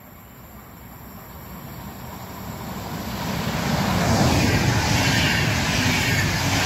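SBB passenger train approaching and passing close by: the rumble of wheels on the rails grows steadily louder, then from about four seconds in the coaches rush past at full loudness.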